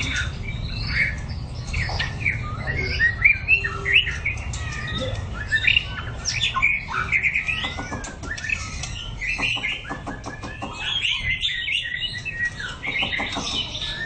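White-rumped shama singing: a continuous run of short, varied whistled phrases.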